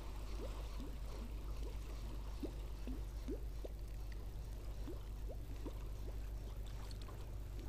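Water gurgling and lapping against a boat hull in short, irregular rising plops, over a steady low hum.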